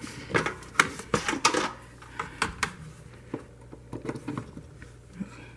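Clicks and clinks of an old crock pot being handled, its lid and setting control. A quick run of knocks comes in the first couple of seconds, then scattered clicks.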